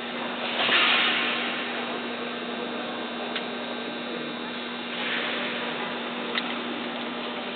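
Steady electrical hum over a noisy background hiss, with two brief swells of hiss and a single sharp click about six seconds in.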